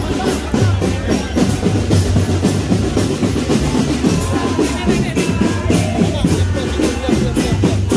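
Marching drum band playing a steady beat, with deep bass drum hits and sharp strokes that repeat several times a second.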